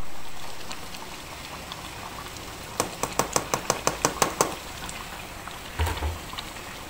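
Fish in yellow broth simmering in a wok, with a quick run of about ten light clicks as a plastic cutting board and spatula are knocked against the wok to tip in chopped spring onions, then a single soft thump near the end.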